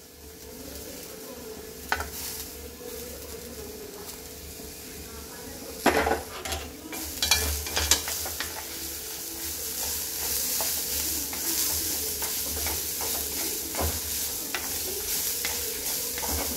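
Chopped ridge gourd frying in oil in an iron kadai, stirred with a spatula that scrapes and clinks against the pan. About six seconds in there is a loud clatter, and from then on the sizzling grows louder and keeps on.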